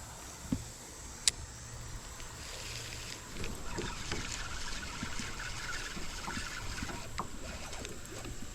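Shallow creek water splashing and sloshing, growing busier about two seconds in, with one sharp click about a second in.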